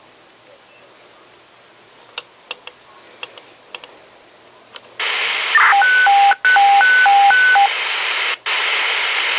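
A few sharp clicks, then a radio scanner's squelch opens on a hissy dispatch channel. A two-pitch high-low alert tone alternates about four times over two seconds: the county emergency management agency's alert tone to all public safety agencies, ahead of a voice broadcast.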